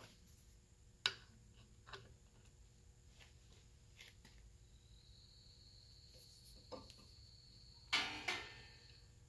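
Faint handling noises: a few sharp clicks and light knocks as hands work on a propane regulator, then a louder rustling scrape about eight seconds in as the red rubber fuel hose is bent into place against it.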